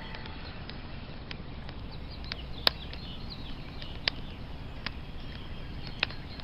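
Wood fire crackling: irregular sharp pops and snaps, a few of them loud, over a steady low background noise.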